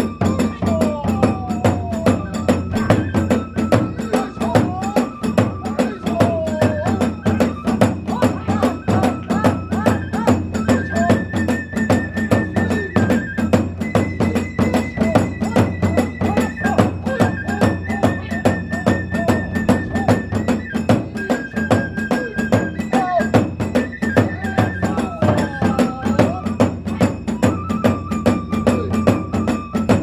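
Kagura accompaniment: drums and small hand cymbals beating a fast, steady rhythm, with a high bamboo flute playing a melody over it.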